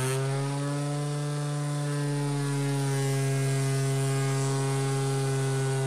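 Electric orbital sander switched on and running steadily at full speed, strapped onto a plastic CD case to serve as a vibration table: a constant motor hum on one low pitch.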